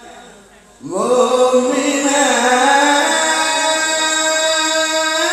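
A male Qur'an reciter's voice chanting in the melodic tilawah style: after a short pause for breath, he slides up into a long held note about a second in and carries it on as one sustained, ornamented phrase.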